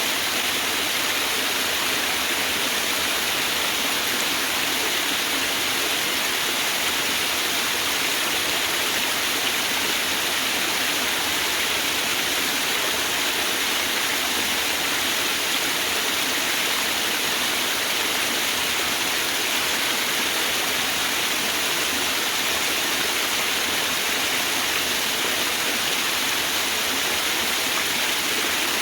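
Steady rush of a waterfall, water falling and splashing without a break at an even level.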